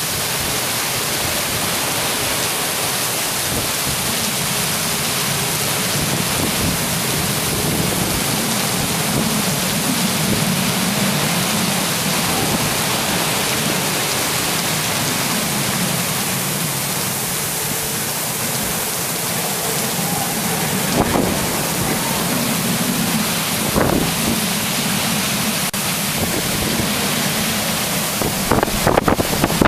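Rain pouring down steadily in a thunderstorm, with a few brief knocks in the last ten seconds.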